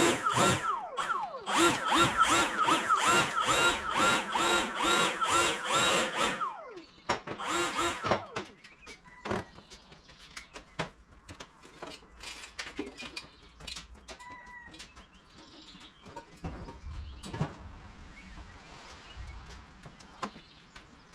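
A small high-revving motor, like a power tool's, running in rhythmic pulses of about two to three a second, then winding down about six seconds in; faint scattered clicks and knocks follow.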